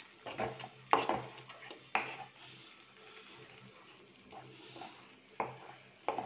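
Spatula stirring a thick curd and cashew gravy in a non-stick pan, with a handful of short scrapes and knocks against the pan, the loudest about a second in and two more near the end.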